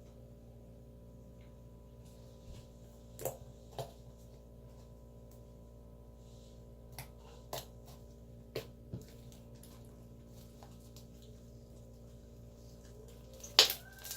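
Sticky homemade glue slime being stretched and handled, giving a few short clicks and pops, the loudest near the end, over a steady faint hum.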